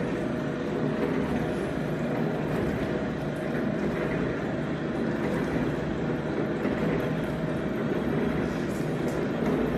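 Stainless steel passion fruit juicing machine running steadily while it strips the pulp from the fruit and drops the empty peels out.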